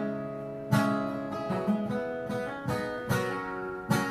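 Acoustic guitar strumming chords with no singing, in an instrumental break between the chorus and the next verse of a country song. Each strong strum rings out before the next, roughly once a second.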